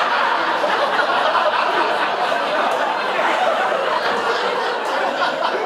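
Comedy-club audience laughing, loud and steady.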